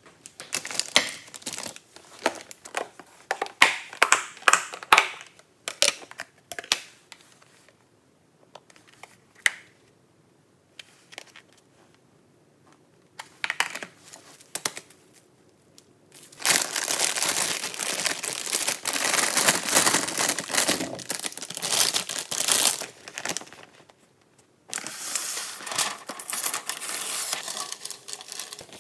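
Kitchen handling sounds: dishes and plastic food containers clicking and knocking on a stone countertop, then long stretches of crinkling and tearing wrap and paper, ending with parchment paper crinkling as it is pressed into an air fryer basket.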